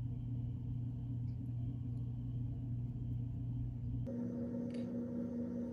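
A steady low hum with no speech over it. About four seconds in it switches abruptly to a higher steady tone.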